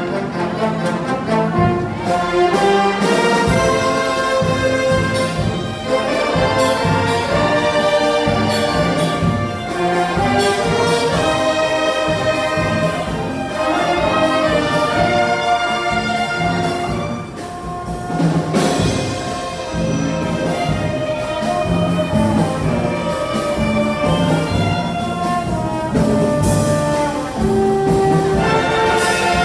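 Concert band of brass and woodwinds (trumpets, saxophones, clarinets) playing a cha-cha number live over a steady percussive beat, the loudness dipping briefly a little past the middle.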